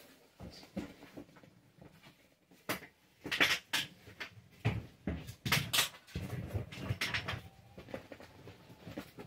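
Handling noise at the head of an ambulance stretcher: rustling straps and several sharp knocks and clicks, bunched from about three to six seconds in.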